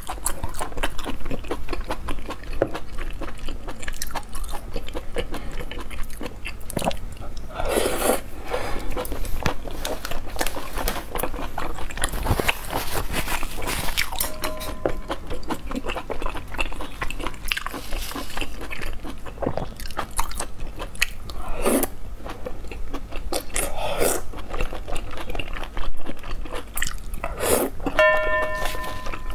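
Close-up eating sounds: spicy braised intestines being chewed with wet, squelchy mouth noises, with a few louder slurps as long strands are sucked in.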